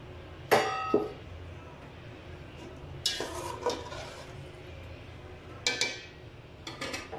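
A metal slotted spatula stirring chicken stock in a metal cooking pot, knocking against the pot about five times with short ringing clinks.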